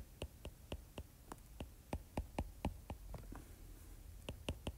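Stylus tapping and clicking on a tablet screen while handwriting: a quick run of short, sharp clicks, about four or five a second, with a brief pause a little after three seconds in.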